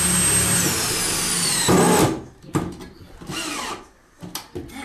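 Cordless drill driving screws through a steel joist hanger into a wooden beam: one long run of about two seconds with a high whine that falls in pitch, then a few shorter bursts as the screws are seated.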